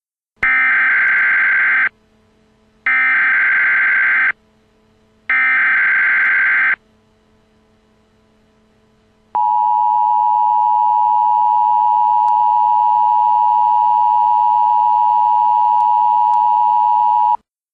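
Emergency Alert System header: three bursts of SAME digital data, each about a second and a half long, followed after a short pause by the steady two-tone attention signal held for about eight seconds before cutting off.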